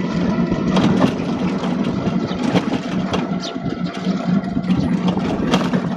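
An engine running steadily, with scattered knocks and clattering over it.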